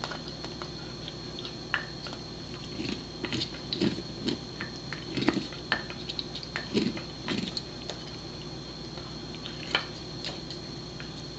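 Pembroke Welsh Corgi gnawing a caribou antler: irregular clicks and scrapes of teeth on hard antler, with short crunching thuds, busiest through the middle and easing off near the end.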